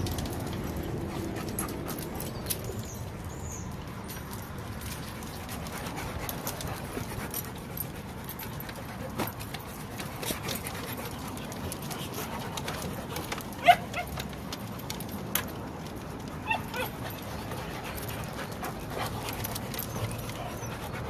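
Dogs at play on wooden platforms: a few short dog yips, the loudest a little past halfway, over scattered light clicks and taps of claws on the boards.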